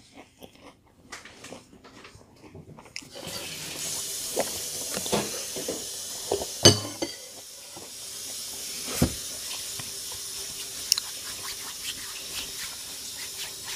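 A metal spoon clinking against a glass cereal bowl a few times, the loudest clink about halfway through, with soft chewing of cereal between. A steady hiss comes in about three seconds in and stays under everything.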